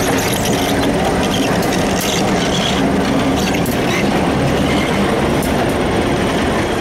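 Two diesel-electric locomotives, Housatonic Railroad 3600 and ex-Bangor & Aroostook 22, passing close by with a loud, steady engine rumble and scattered sharp clicks.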